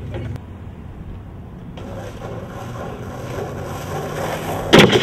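Skateboard wheels rolling over asphalt, then a single sharp, loud clack of a skateboard deck hitting the ground near the end.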